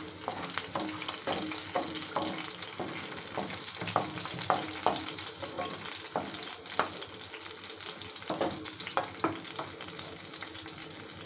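Chopped garlic, green chillies and a dried red chilli sizzling in hot oil in a pan, with repeated short scrapes and taps of a spatula stirring them.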